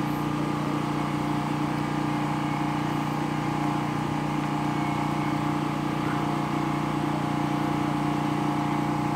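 Water pump motor running with a steady hum, pumping water up into the rooftop plastic drums that are nearly full.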